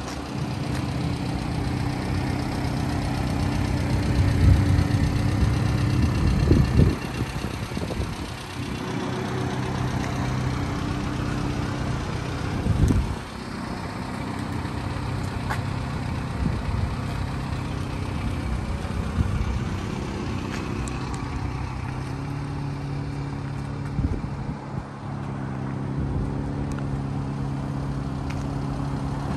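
1995 Subaru Sambar truck's small 660 cc four-cylinder engine idling steadily, with a couple of dull knocks about 7 and 13 seconds in.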